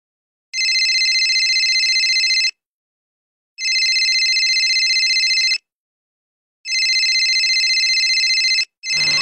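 Smartphone ringing with an incoming call: a trilling electronic ring in bursts about two seconds long, repeating about every three seconds. Three full rings sound, and a fourth starts near the end.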